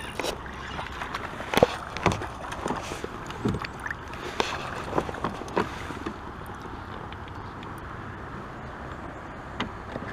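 Knocks and clatter of gear being handled on a kayak, over a steady wash of water. The knocks come thickly in the first six seconds, then a couple more near the end.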